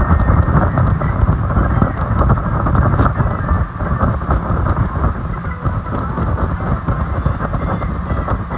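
Heavy wind buffeting a phone's microphone aboard a speedboat under way, over the rumble of the boat's engine and hull running across the water.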